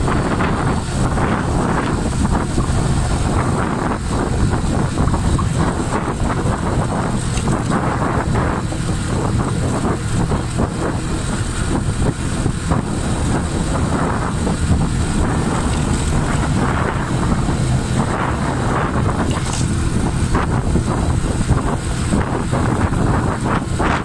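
Honda Splendor NXG 100 cc motorcycle running steadily at road speed, its single-cylinder four-stroke engine droning under steady wind rushing over the microphone.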